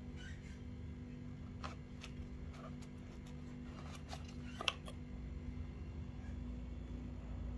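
Light handling noises of a camera and its packaging during unboxing: scattered small clicks and rustles, with one sharper click a little past halfway, over a steady low hum.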